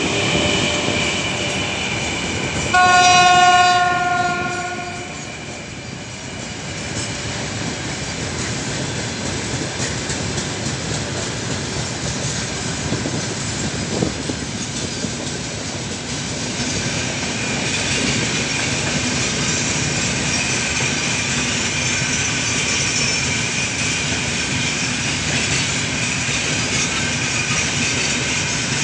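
A freight train behind 2ES5K Ermak electric locomotives passing close by. The locomotive sounds its horn once, about three seconds in, for about two seconds. Then the open wagons roll past with steady wheel noise on the rails, with one sharp clank midway and a thin high whine over the rumble in the second half.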